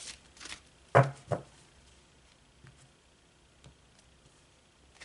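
Oracle cards being handled: a few light card clicks, then two sharp taps close together about a second in, then faint handling.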